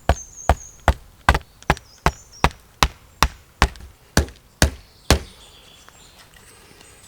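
A tool striking wood in quick, even blows, about two and a half a second, thirteen in all, stopping about five seconds in.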